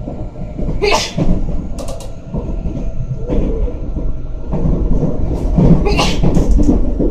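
Keio Line commuter train moving along a station platform, its low rumble growing louder over the last few seconds, with a few short hisses.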